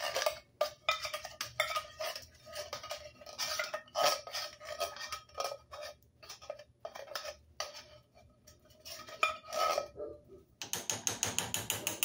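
Metal spoon scraping and knocking inside a tin can to clear out thick cream of coconut: irregular clinks and scrapes, with a quick run of rapid scraping near the end.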